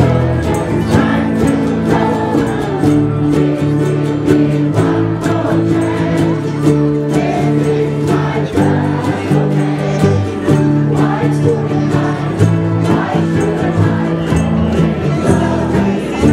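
A ukulele ensemble strumming together while many voices sing along.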